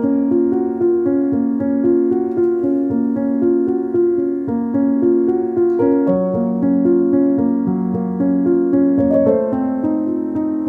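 Piano background music: a melody of notes changing about every half second over lower held notes.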